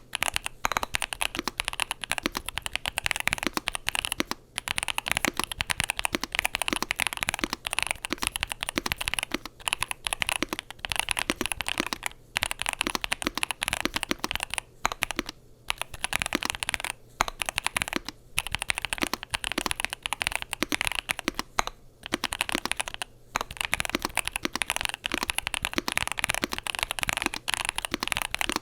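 Continuous fast typing on a Yunzii AL65 aluminium-case gasket-mount mechanical keyboard with Gateron Zero linear switches and PBT keycaps: rapid, irregular key clacks with a few brief pauses.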